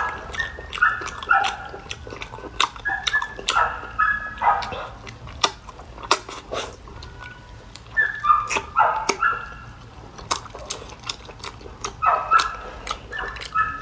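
Wet eating sounds from drawing in and chewing boiled octopus tentacles: many sharp mouth clicks and smacks. Clusters of short, squeaky, whine-like high cries, often falling in pitch, come about every three to four seconds and are the loudest sounds.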